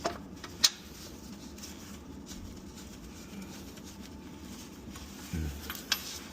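A few light clicks and a short low knock over a steady low hum.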